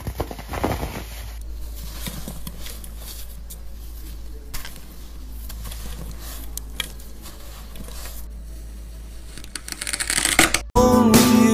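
Close-up crunching and crumbling as moulded sand shapes are crushed and broken apart by hand, then a knife slicing through a dome of kinetic sand. Near the end it cuts abruptly to loud music.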